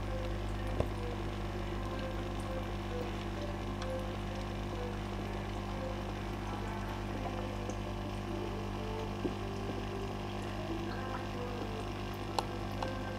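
Aquarium filter pump running steadily, a low hum under a constant hiss of moving water, with a few faint clicks.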